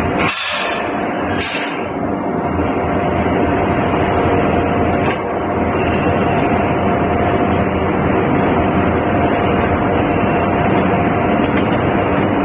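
Steady machine drone with a constant mid-pitched hum, the background running of a welding shop. A few sharp knocks come in the first two seconds, and one more about five seconds in.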